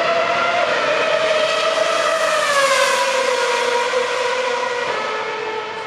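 A race car engine at high revs passing by. Its note drops in pitch as it goes past, about two and a half seconds in, then fades a little.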